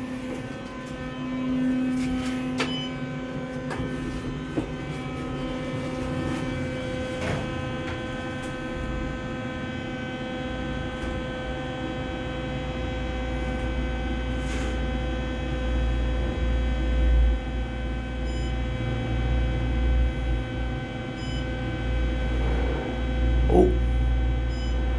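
Steady electrical hum of elevator machinery, with a low rumble that builds from about halfway through.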